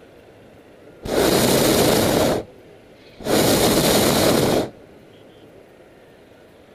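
Hot-air balloon's propane burner firing in two loud blasts of about a second and a half each, with a short gap between. Each blast is an even rushing noise that starts and stops abruptly.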